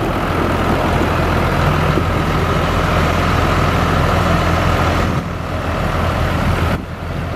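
New Holland TM150 tractor's diesel engine idling steadily, a deep low hum with a fainter steady whine above it. The sound drops in level about five seconds in and again near the end.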